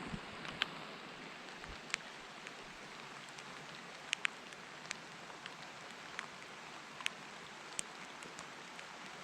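Steady rain falling on the lake: an even hiss of drops with scattered sharper ticks from larger drops landing close by.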